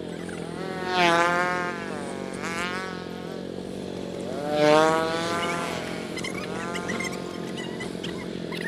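Engine running steadily, with wavering whine-like tones that dip and rise over it, loudest about a second in and again just before the five-second mark.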